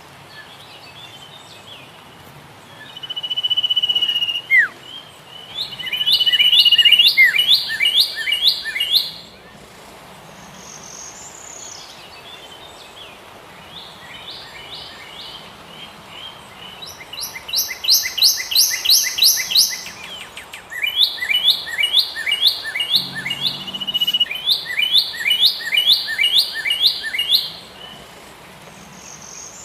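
A songbird singing repeated phrases: a thin held whistle, then a rapid run of sliding notes, several times over, against a steady background hiss.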